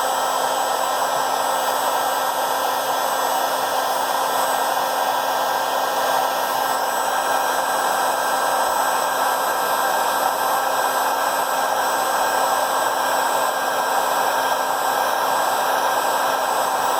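A handheld hot-air blower running steadily, heating a phone's camera glass to soften the adhesive that holds it.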